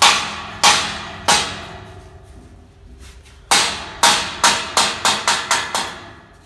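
Hammer blows on a steel grill being fitted into its frame: three strikes about two-thirds of a second apart, a pause of about two seconds, then a quickening run of nine strikes, each ringing out metallically.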